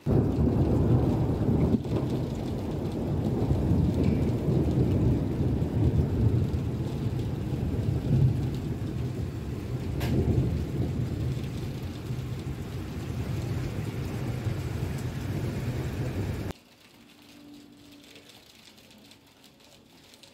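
Rainstorm: steady heavy rain with a deep rumble that swells and eases. It cuts off suddenly about sixteen seconds in, leaving only a faint background.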